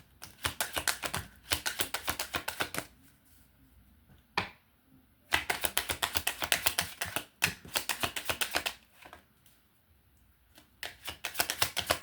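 A deck of Kipper cards being shuffled by hand: several runs of rapid flicking clicks, each lasting about a second or two, broken by short pauses, with a single sharp snap about four seconds in.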